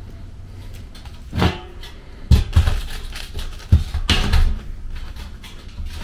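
Knocks and clatter from tools and furnace parts being handled and set down, in four or five separate bursts, the loudest in the middle.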